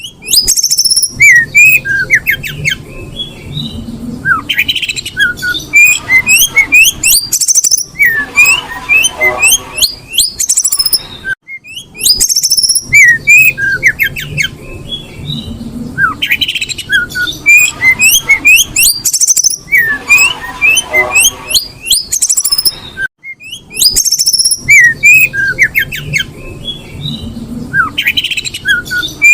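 Female oriental magpie-robin calling in breeding condition: rapid chirps, squeaky slurred notes and short whistles. The same run of calls repeats about every twelve seconds, as a loop.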